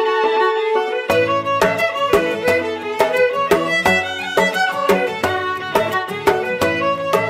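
Background music: a violin melody over a steady beat, with the beat and bass coming in about a second in after a held note.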